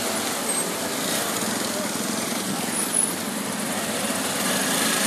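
Busy street noise: motorcycles and scooters running past amid the mixed chatter of a crowd, as a steady dense din.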